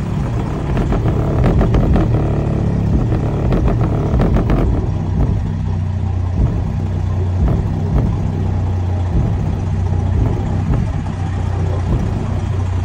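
Deep bass from an aftermarket subwoofer setup inside a Freightliner Coronado's cab, heard from outside the truck, the bass notes shifting about five seconds in.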